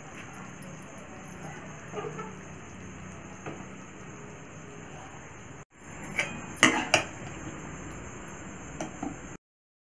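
Aluminium kadai clattering as it is handled with a cloth and set down on a stone counter: a few light knocks, then a louder burst of metal clatter about two-thirds of the way in and two more knocks near the end, over a steady low hum.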